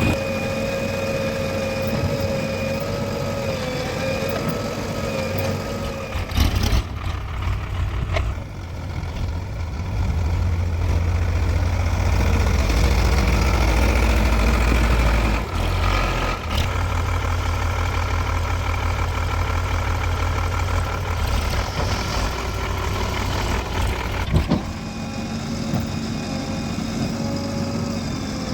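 Diesel engines of a JCB 3DX backhoe loader and farm tractors running, the deep engine note growing heavier for several seconds in the middle as the machine works under load, with a few sharp clunks along the way.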